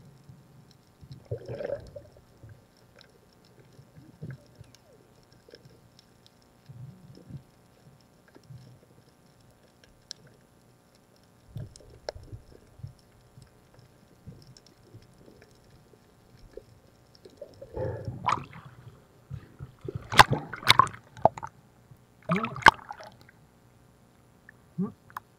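Underwater water sounds during a night dive: faint low knocks and water movement, then a run of loud gurgling, bubbling bursts from about 18 to 23 seconds in.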